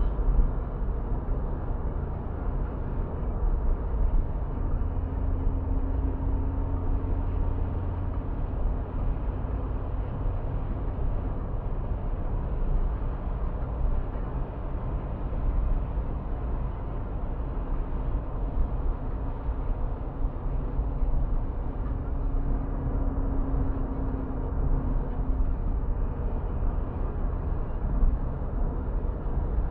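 Steady low rumble of road and engine noise inside a car cruising on a motorway. A faint hum comes in twice.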